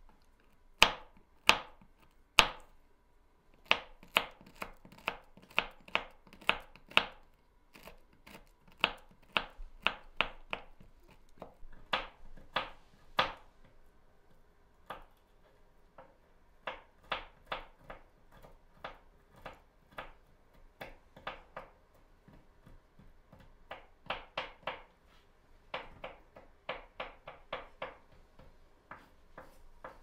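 Kitchen knife chopping walnut kernels on a wooden cutting board: sharp knocks of the blade on the board, about two a second, in runs broken by short pauses.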